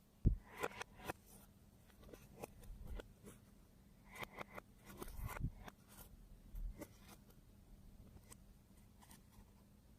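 Slime being mixed and handled by hand: scattered short clicks and crackles, with a knock just after the start and a busier patch about halfway through.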